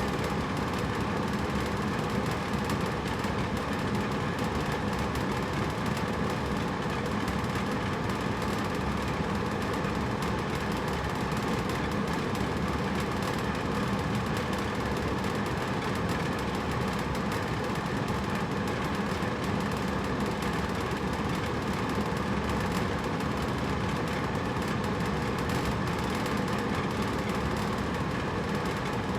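Hotel room air conditioner running steadily: an even whooshing noise with a low hum underneath.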